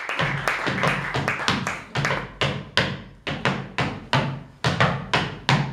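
Live acoustic music intro: sharp percussive taps in a steady rhythm, about three a second, over low plucked double-bass notes.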